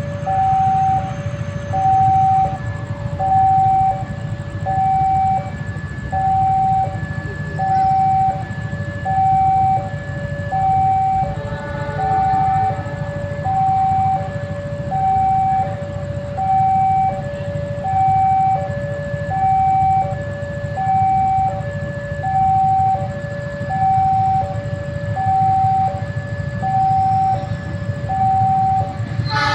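Railway level-crossing warning alarm: an electronic two-tone signal alternating a higher and a lower tone in an even, unchanging rhythm, warning that a train is approaching. A steady low rumble runs underneath.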